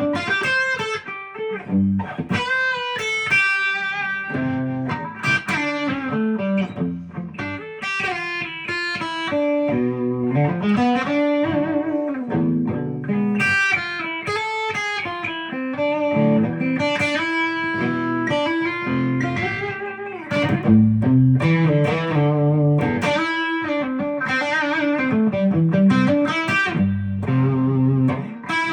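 Epiphone Les Paul Custom electric guitar played through an amp: picked single-note lines and chords, with notes that slide and bend in pitch.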